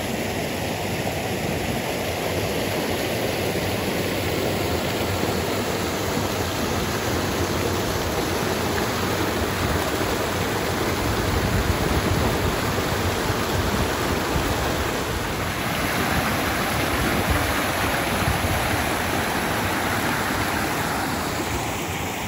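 Rushing water of a waterfall spilling over cascading rock pools, a steady dense rush.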